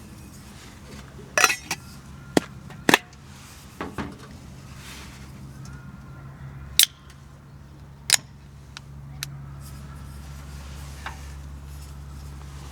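Scattered sharp clicks and knocks of hard objects being handled and set down, about ten in all and loudest in the first few seconds, over a steady low hum.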